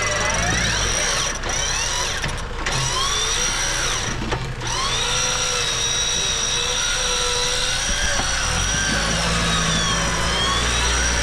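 A motor whining steadily, its pitch slowly wavering up and down, over a low steady rumble.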